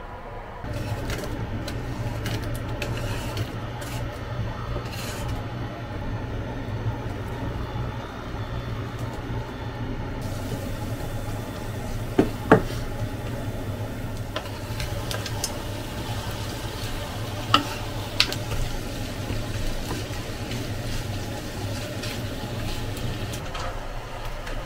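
Diced onions sizzling and crackling in oil in a nonstick frying pan, stirred with a wooden spatula, over a steady low hum. The sizzle starts about a second in, and a few sharp knocks of the spatula against the pan come near the middle.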